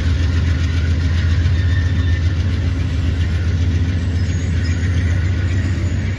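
Amtrak diesel-hauled passenger train departing: the GE Genesis locomotive running with a steady low drone while the stainless-steel Amfleet coaches roll past on the track.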